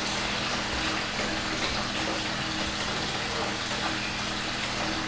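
Steady rush of running water with a constant low hum underneath.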